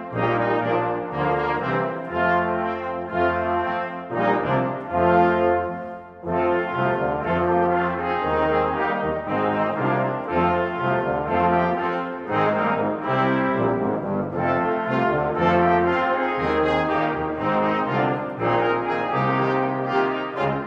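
A brass choir of trumpets, trombones and low brass playing a slow piece in sustained chords. There is a short breath between phrases about six seconds in.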